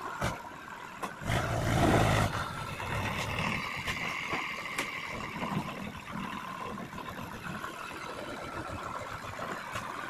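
Swaraj 735 FE tractor's three-cylinder diesel engine running as the tractor manoeuvres with its trailer, revving up louder about a second in and settling back to a steady run after about two seconds.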